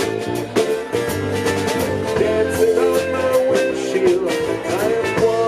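Live band music: electric guitar over drums with a steady beat and a bending melody line.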